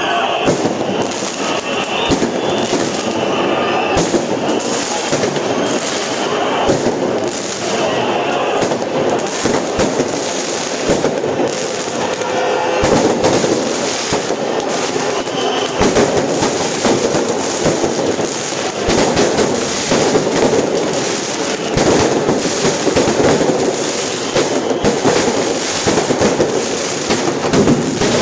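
Large angry crowd shouting and yelling together as in a riot, with frequent sharp bangs and pops scattered through the din.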